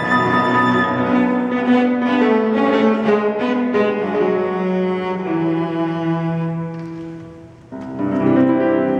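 Piano trio of violin, cello and piano playing a classical chamber arrangement. Sustained bowed string lines sound over piano; the music dies away about three-quarters of the way through, then the trio comes back in with a strong entry near the end.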